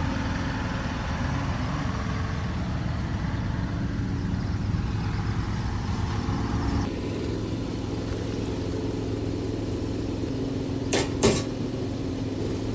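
Cherry picker's engine running steadily; its sound thins out abruptly about halfway through. Two sharp knocks come close together near the end.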